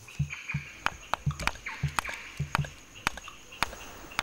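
Irregular sharp knocks and dull thuds, about two a second, from chimpanzees handling and striking hard-shelled baobab fruits on a tree branch.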